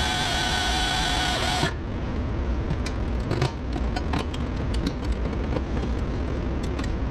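A power tool runs with a whine and a hissing edge, then stops a little under two seconds in. After that there is a low steady workshop rumble with scattered small clicks and knocks.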